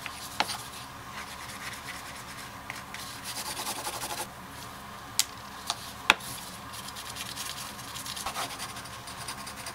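A wooden slicker rubbed quickly back and forth along the edge of a strip of leather, burnishing the edge, in several bouts of strokes. A few sharp clicks come between the bouts, the loudest about six seconds in.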